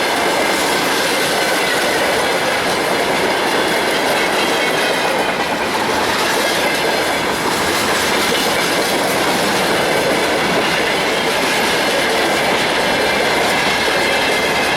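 Freight train wagons rolling past on steel rails: a steady, loud rumble of wheels on track, with faint high ringing tones running through it.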